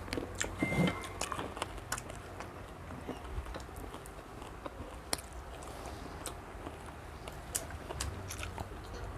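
Eating sounds at a meal of rice, grilled chicken and fish: chewing, with scattered sharp clicks and taps at irregular intervals.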